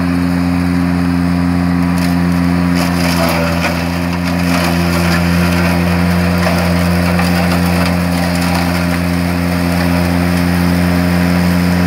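Ventrac compact tractor's engine running steadily under load while its front rough-cut mower deck chops through tall grass and brush, with a crackle of stems being cut.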